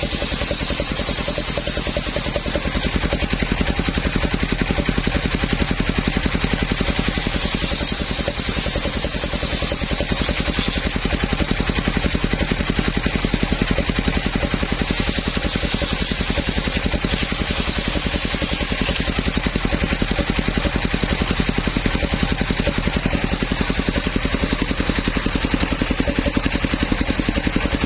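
Homemade engine-driven circular sawmill running steadily, its engine beating in a rapid, even pulse. A thin high hiss lies over it in the first few seconds and again around eight to ten seconds in.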